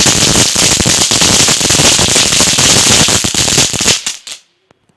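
A1 Chitput novelty firecracker going off: a loud, dense run of rapid crackling pops that stops abruptly about four seconds in.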